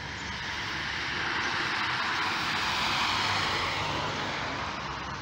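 A car passing by on the road: tyre and road noise swelling to a peak about three seconds in, then fading.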